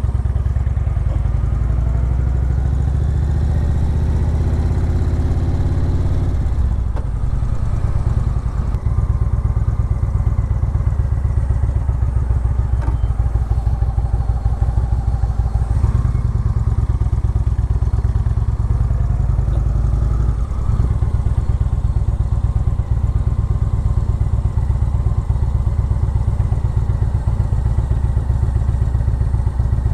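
Motorcycle engine running under way, its low, rapid beat rising in pitch over the first few seconds as the bike speeds up. Brief drops come about seven seconds in and again around twenty seconds, then it runs steadily.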